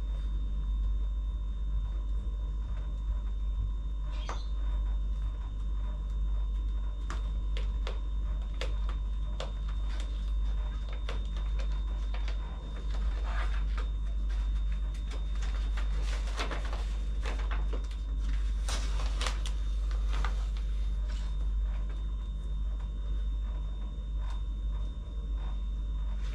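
Scattered clicks and crinkling rustles of sticker wallpaper being handled and pressed on, busiest about halfway through, over a steady low hum.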